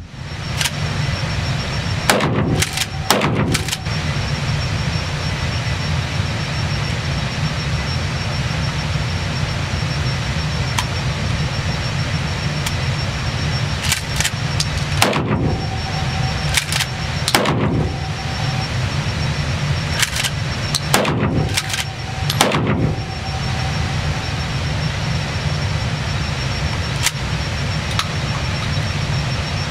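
Shotgun firing at an indoor range: sharp shots in three bunches a few seconds apart, each trailing off in the room's echo, then one more near the end. A steady low rumble runs underneath.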